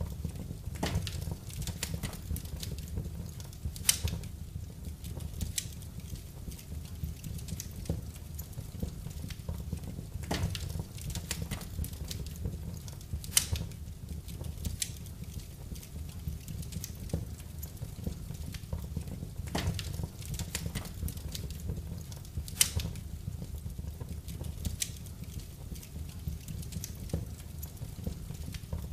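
Wood fire burning in a fireplace: crackling, with sharp pops every second or so over a steady low rumble of the flames.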